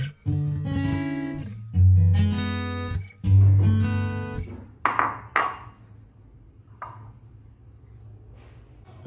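Background music of a strummed acoustic guitar. About halfway through, the music drops away after a couple of sharp knocks, and the rest is much quieter.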